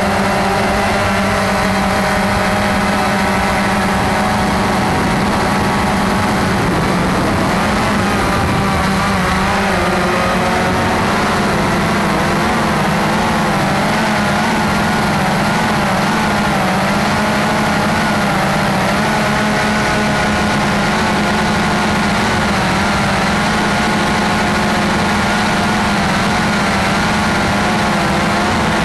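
Cheerson CX-20 quadcopter's brushless motors and propellers humming steadily, heard close up through the camera carried on the drone. The higher whine wavers up and down in pitch from about a quarter of the way in as the motor speeds change.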